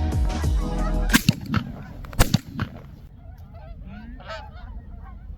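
A flock of Canada geese honking over and over, short calls in quick succession, starting about three seconds in. Before it, music fades out about a second in, followed by two sharp knocks.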